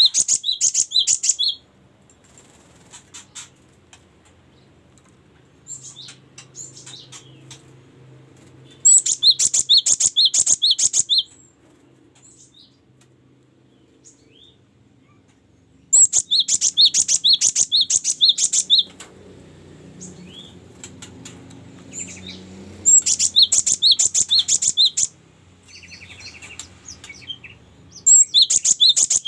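Cinereous tit (gelatik batu) singing: loud bursts of a rapidly repeated high two-note phrase, each burst two to three seconds long, five times over, with softer calls in the pauses.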